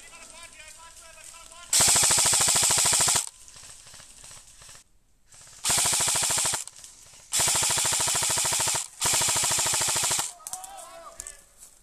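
Airsoft rifle firing full-auto in four long bursts of rapid, evenly spaced shots, each about one to one and a half seconds long; the last two come almost back to back.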